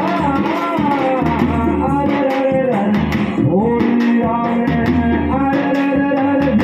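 Background music: a singing voice over guitar, with a steady bass underneath.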